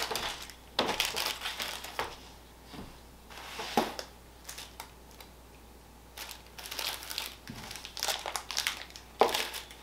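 Plastic and foil snack wrappers crinkling and rustling as they are handled and moved about on a tabletop, in irregular bursts.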